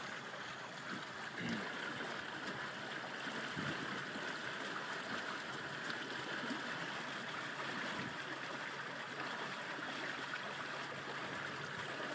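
Steady rush of water along the hull and in the wake of a Django 7.5 sailboat sailing along, a continuous hiss with no engine note.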